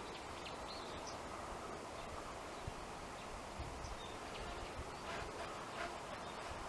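Rural outdoor ambience: a steady faint background hiss with a few faint high bird chirps near the start, and a couple of short faint bird calls about five to six seconds in.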